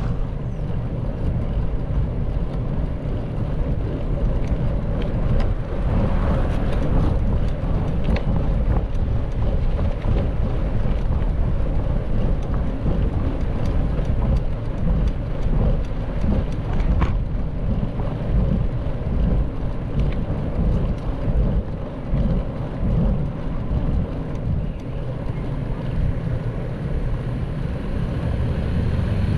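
Wind buffeting the microphone: a steady, fluctuating low rumble, with a few faint clicks and rattles.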